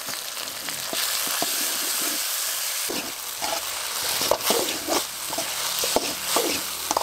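Chopped onion, garlic, chillies and spices sizzling in oil in a metal kadai, stirred with a perforated metal ladle. From about three seconds in, the ladle scrapes and knocks repeatedly against the pan over a steady sizzle.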